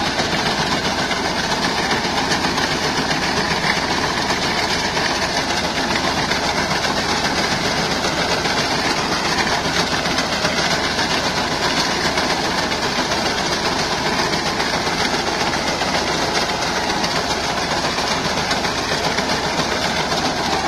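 Tractor engine running steadily under load, with the rapid clatter of a front-mounted reaper's cutter bar cutting standing wheat.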